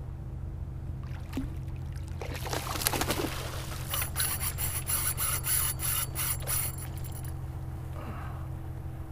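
Water splashing as a hooked fish thrashes at the surface beside a kayak. About four seconds in, a spinning reel gives a rapid, high-pitched buzz for about three seconds.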